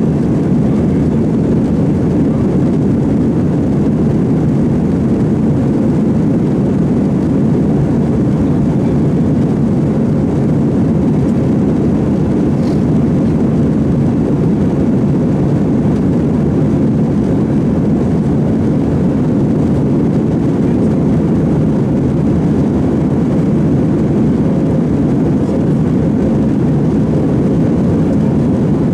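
Steady engine and airflow noise of a jet airliner in flight, heard from inside the passenger cabin as an unchanging low rumble.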